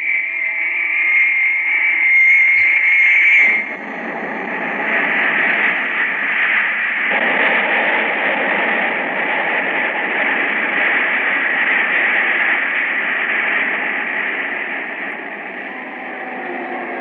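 Radio-drama sound effect of a rocket taking off: a steady high whine, then about three and a half seconds in a sudden switch to a loud, even rushing noise that carries on and fades a little near the end.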